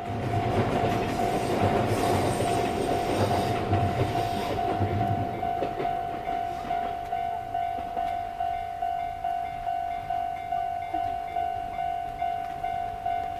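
A train hauled by the Chichibu Railway Deki 108 electric locomotive passes close by, loud with wheel rumble and rhythmic clacking for the first few seconds, then fading away. Throughout, a railway level-crossing alarm rings steadily at about two dings a second.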